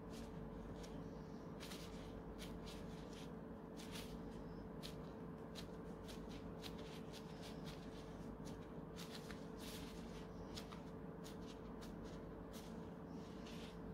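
Thin plastic disposable glove crinkling in quick, irregular rustles as a gloved hand presses shut the edges of a filled qatayef pancake, over a low steady hum.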